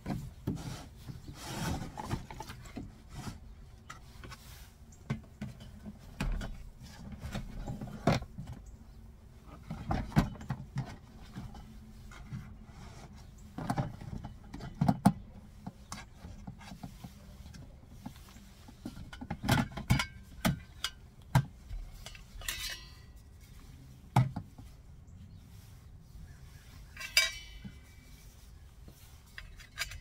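Hands handling a large plastic water jug, a plastic basin and a stainless-steel utensil cup on a wooden shelf: irregular knocks, rubs and clinks, with two short squeaks in the second half.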